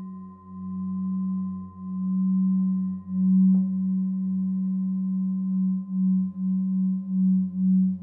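Meditative drone music: a steady low tone over a deeper hum, swelling and fading in slow pulses that come faster in the second half. A faint click comes about three and a half seconds in.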